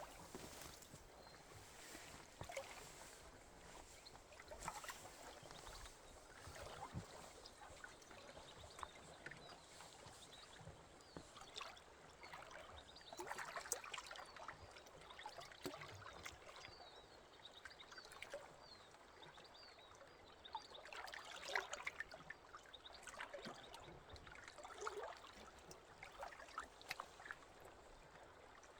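Water trickling and lapping gently, with small irregular splashes.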